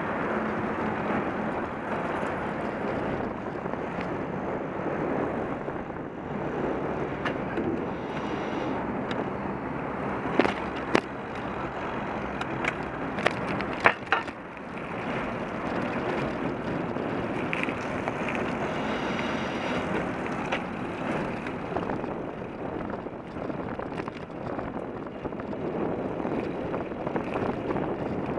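Bike-share bicycle rolling over city pavement: steady tyre and road noise with wind on the microphone. Several sharp knocks and rattles come about ten to fourteen seconds in as the bike goes over bumps.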